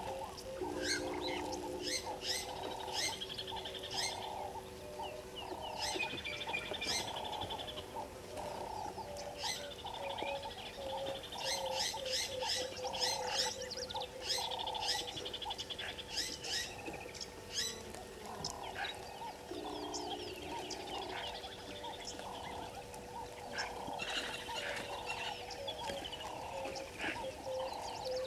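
Many wild birds chirping and calling, with sharp chirps and short trills, over a steady background chorus that pulses about twice a second.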